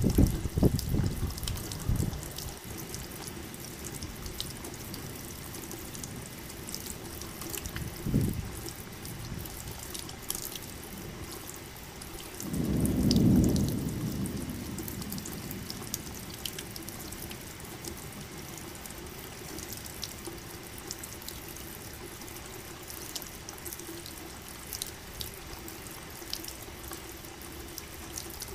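Steady rain with scattered close drips, and low rolls of thunder: one dying away over the first two seconds, a short one about eight seconds in, and a longer, louder roll about thirteen seconds in.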